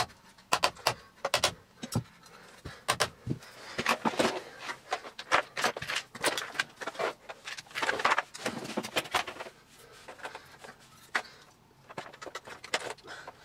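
Plastic and metal parts of a Miele S2111 vacuum cleaner being handled and fitted back together: a quick run of clicks and knocks in the first second and a half, then rustling and scraping, with scattered clicks near the end.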